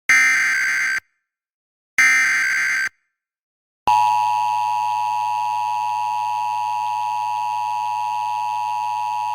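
Emergency Alert System SAME header: the last two of its three one-second bursts of harsh digital data tones, a second apart. About four seconds in, the steady EAS attention tone begins and holds, the signal that a warning announcement follows; here it is a severe thunderstorm warning.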